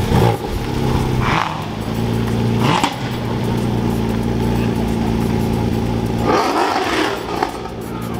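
Porsche 718 Cayman GT4 RS's naturally aspirated 4.0-litre flat-six running at low, steady revs as the car pulls slowly away, with a few brief louder moments in the first three seconds.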